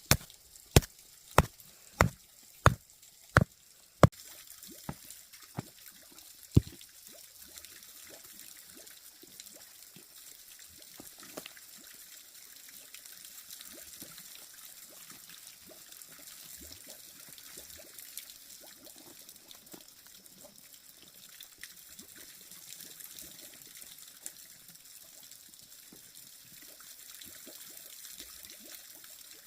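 Seven sharp chopping strikes, about one and a half a second, followed by a few weaker, slower ones. Then water trickles steadily, with faint scattered knocks.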